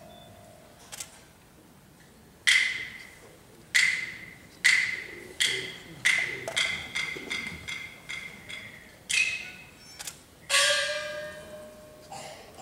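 Peking opera percussion accompaniment: sharp, ringing strikes that start widely spaced and quicken to about two or three a second, then a louder, longer-ringing strike near the end.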